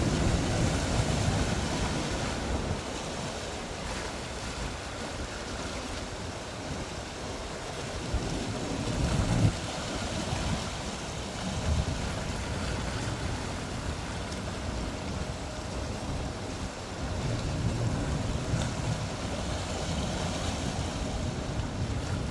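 Sea waves washing, with wind rumbling on the microphone in gusts.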